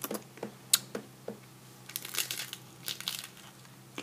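Crisp fried corn tortillas crunching: a few sharp cracks in the first second or so, then two spells of close crackling crunches about two and three seconds in.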